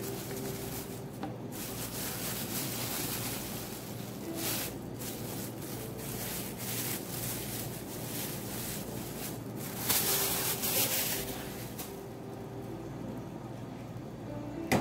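Plastic film rustling and crinkling as gloved hands roll, press and unwrap meat inside a bamboo mat, with a louder rustle near the middle and a longer one about two-thirds through. A steady low hum runs underneath.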